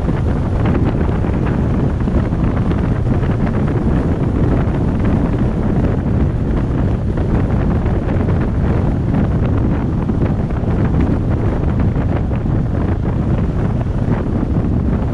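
Wind buffeting the microphone of a camera riding on a moving pickup truck, a steady low rumble mixed with road and engine noise from the truck.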